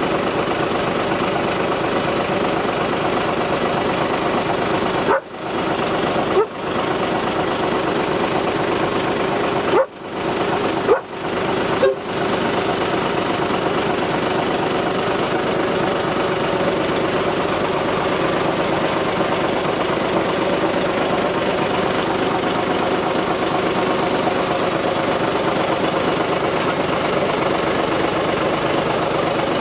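Steady running noise of a narrow-gauge locomotive standing coupled up to its carriages, with a few brief dropouts in the sound between about five and twelve seconds in.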